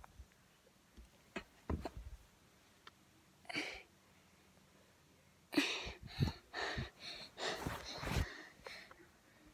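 Breaths and sniffs close to a phone's microphone, with a few soft clicks from the phone being handled, then a run of short, puffing breaths in the second half.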